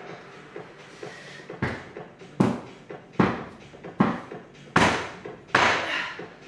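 A series of six sharp thuds, evenly spaced a little under a second apart.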